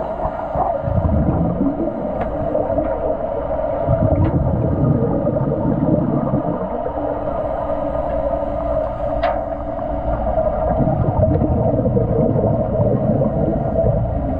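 Underwater recording in a swimming pool: a steady hum with a low rumbling gush of exhaled scuba-regulator bubbles every few seconds, and a few sharp clicks.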